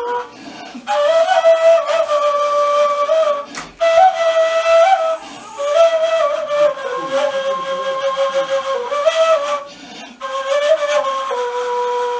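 Kaval, the Turkish end-blown shepherd's flute, playing a slow solo melody of long held notes with small ornamental turns, broken by short breaks between phrases.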